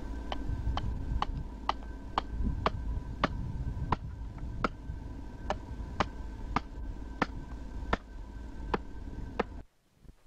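Small hand adze chopping into a wooden mask in quick, regular strokes, about two a second, each a sharp tap. The strokes stop with a brief dropout near the end.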